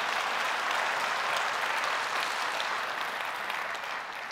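Theatre audience applauding, a dense patter of many hands clapping that tapers off near the end.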